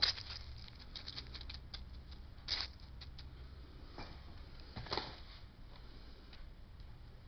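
Spoon scraping and scooping sticky chocolate crackle mixture, rice bubbles coated in melted Copha, out of a mixing bowl: a run of short, irregular scratchy scrapes and light clicks, with a few louder scrapes at the start and near the middle.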